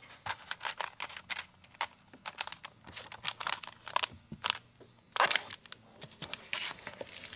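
Plastic window tint film crinkling and scraping as it is handled and worked onto the glass: an irregular run of short crackles and scrapes, the loudest about five seconds in.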